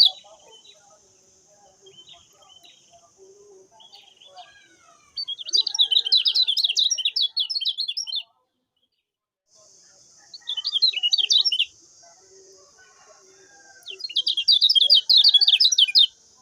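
Lemon-bellied white-eye (kecial kuning) singing in three bursts of fast, high chattering twitters a few seconds apart. A steady high hiss runs behind the later bursts.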